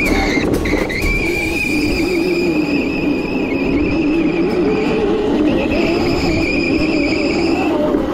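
Razor Crazy Cart electric drift kart driving and sliding on concrete. A steady high whine from the electric drive runs over a lower tone that rises and falls with speed, with the wheels rumbling on the concrete. The high whine breaks off briefly about half a second in and fades near the end.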